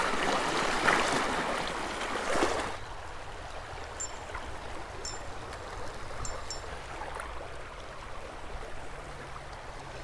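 Shallow creek water running over a rocky bed, louder for the first two and a half seconds, then a quieter steady rush.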